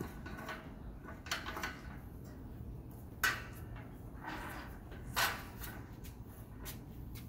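A dog sniffing and shifting about on cardboard: a handful of short, soft scuffs and sniffs, scattered a second or two apart, over a faint steady low hum.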